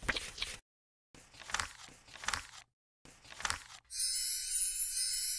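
Logo-animation sound effects: three short rushes of noise, then about four seconds in a bright, high, glittering chime.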